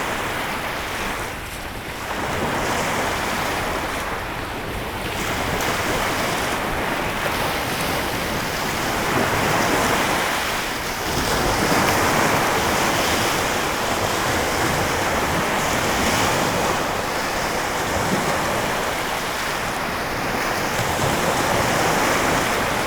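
Lake Michigan waves washing ashore: a steady wash of surf that swells and eases every few seconds, with wind on the microphone.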